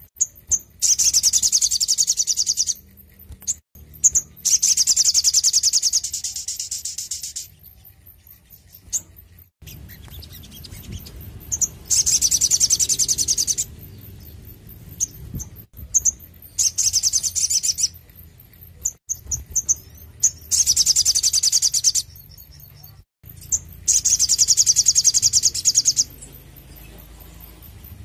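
Olive-backed sunbird (sogon) singing in fast, high, rapidly repeated trills, about five bouts of one to two seconds each, with short single chirps between them.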